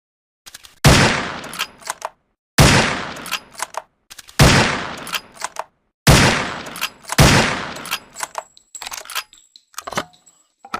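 SRP rifle sound effect: five loud single shots, each trailing off in a fading echo, with small sharp clicks between them and after the last.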